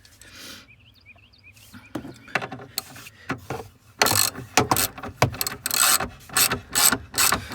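Socket ratchet clicking as a 10mm bolt is backed out: a few scattered clicks at first, then steady ratcheting at about three strokes a second from about halfway in.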